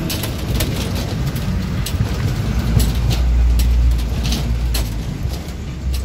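A vehicle running, heard from on board: a steady low engine and road rumble, heaviest a little past the middle, with many rattling clicks.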